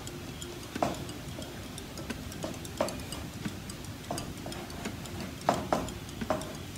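Graphite pencil drawing on paper clipped to an easel board: short strokes and scratches at irregular moments, a few sharper than the rest. Under them runs a faint, even ticking.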